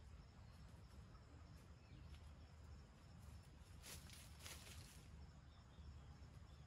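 Near silence: faint outdoor background with a low rumble, and a brief faint rustling noise about four seconds in.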